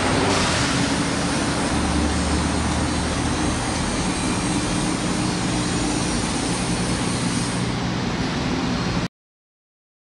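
Steady street traffic noise: a continuous rush of vehicles with a low engine hum underneath, cutting off abruptly about nine seconds in.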